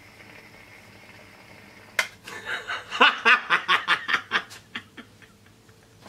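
Water sizzling faintly as it heats between two carbon rods carrying mains current, then a sudden sharp crack about two seconds in, followed by a man laughing in quick bursts for about three seconds.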